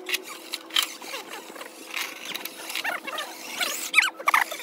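Small electric motor and geartrain of an RC rock crawler whining in short bursts that rise and fall in pitch as the throttle is worked on a climb. Sharp clicks of the truck knocking against the rocks come in between, with the busiest whining near the end.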